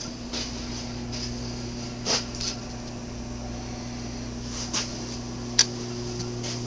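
Steady low hum of the room's air conditioning, with a few soft rustles and knocks and one sharp click about five and a half seconds in.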